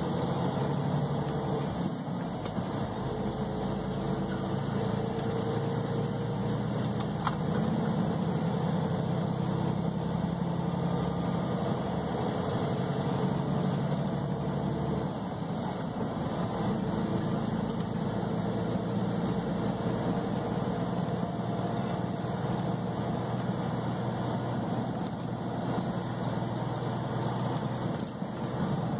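Semi-truck engine and road noise heard from inside the cab while driving on the highway, a steady low drone.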